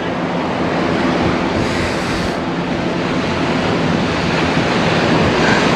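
Sea surf washing and breaking against the concrete blocks of a breakwall, with wind buffeting the microphone. One brighter, hissier wash comes about two seconds in.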